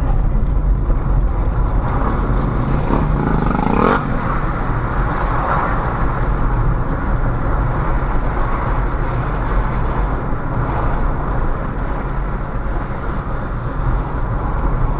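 Steady low rumble of a car's engine and tyres heard from inside the cabin as it drives along a street. About three seconds in, a brief rising sound climbs in pitch and cuts off at about four seconds.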